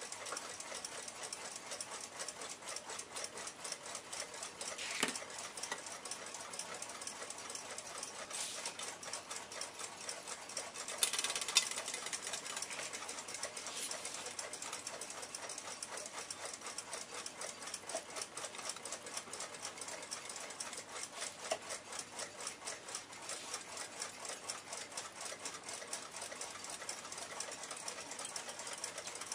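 Pin-lever escapement of a 1906 Western Clock Company alarm clock ticking rapidly and evenly as the movement runs. Light metal clicks from parts and tweezers being handled, with a short metallic rattle about eleven seconds in.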